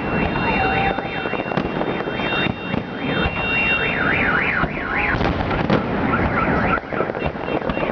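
Fireworks banging and crackling over a continuous rumble, with a car alarm siren warbling rapidly up and down through most of it, most likely set off by the blasts.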